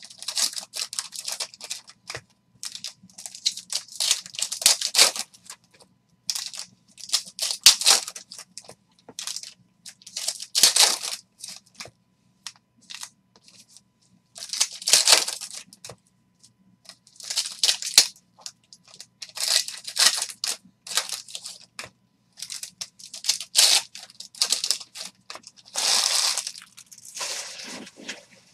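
Foil trading-card pack wrappers crinkling and tearing as packs are ripped open and handled, in repeated bursts every second or two.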